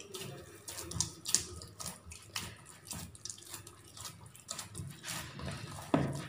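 Hands kneading a soft, sticky yeast dough for pizza in a plastic bowl: irregular wet squishing and slapping strokes as the dough is pressed and folded.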